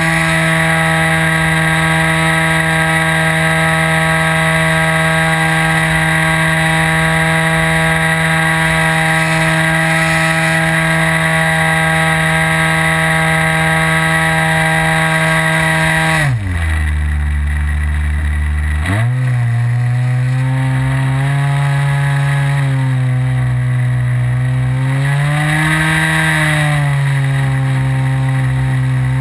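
Onboard sound of an RC model plane's O.S. 55 AX two-stroke glow engine, with a buzz that holds steady at high throttle. About two-thirds of the way in its pitch drops suddenly to idle, then comes back up to a lower part-throttle setting that swells briefly near the end.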